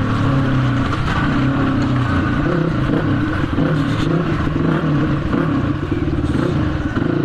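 Dirt bike engine fitted with a Nibbi racing carburettor, pulling under throttle while the bike is ridden. Its pitch holds fairly steady with small rises and dips as the new carburettor's pickup is tried out.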